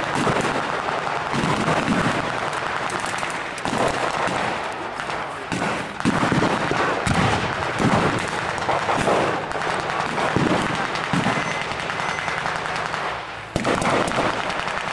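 Blank gunfire from re-enactors' WWII-era weapons: many sharp shots overlapping, some in quick runs like a machine gun. About a second and a half before the end a sudden louder report stands out.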